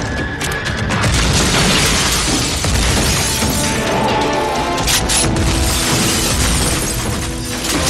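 Movie gunfight sound mix: gunshots and bullets hitting metal, dense and loud, layered over the film's score music, with a few sharp cracks about five seconds in.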